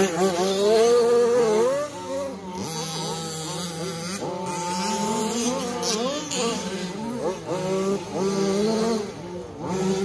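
Several radio-controlled 4WD short course trucks racing on a dirt track, their motors whining and sweeping up and down in pitch as they throttle on and off, loudest as one passes close about a second in.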